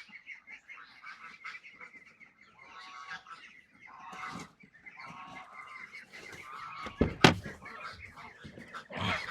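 Farm waterfowl calling over and over with honking calls, and one sharp thump about seven seconds in.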